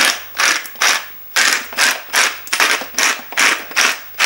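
Stainless-steel salt mill twisted back and forth to grind salt, a quick run of gritty crunching strokes, about three a second.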